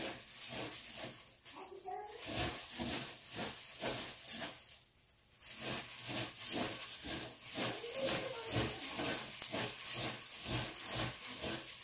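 Dry flattened green rice flakes being tossed and mixed by hand in a bowl: a quick, irregular rustling and crackling, with one sharper tap about four seconds in and a short lull just after.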